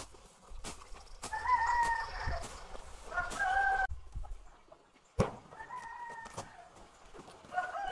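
Roosters crowing, four held crows one after another, with a few sharp knocks in between.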